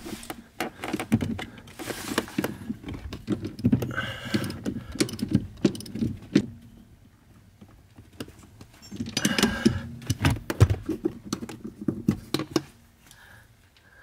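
Metal hand tools, a 6 mm Allen key and a 17 mm socket wrench, clicking and rattling while tightening the shoulder bolt at the clutch pedal's upper pivot. Dense rapid clicking, a pause a little past halfway, then a second run of clicks.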